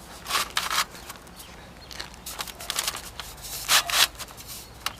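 Metal roof vent flashing being slid up under asphalt shingles: a series of short scrapes and crinkles, with louder strokes about a third of a second in, around halfway, and near four seconds.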